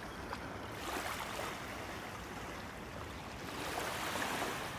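Small waves lapping and washing onto a sandy shore. It is a steady wash that swells a little twice.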